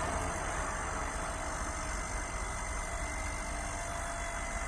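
Small tractor's engine running steadily, a constant low rumble with a faint steady whine.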